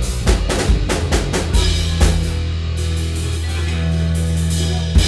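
Live rock band with drum kit, bass and electric guitar. Drum hits for the first two seconds give way to a final chord held steady for about three seconds, closed by one last sharp drum hit near the end.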